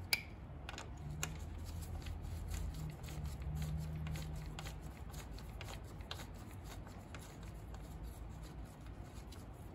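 Faint rustling and a few light clicks of a gloved hand working by hand around the belt tensioner and its bolts in the engine bay, with a low steady hum through the first half.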